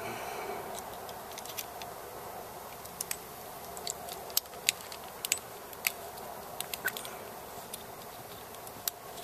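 Light scattered clicks and ticks of a plastic cigarette-lighter power adapter and its small metal parts being handled and fitted back together, over a steady faint hum.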